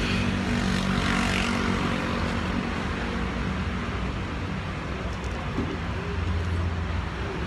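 Street noise from road traffic: a steady rumble of passing vehicles, with a deeper rumble swelling about six seconds in.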